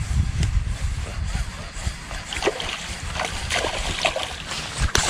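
A hooked shoal bass thrashing at the water's surface beside the boat: a run of irregular splashes that grows heavier in the last couple of seconds as it is reeled in.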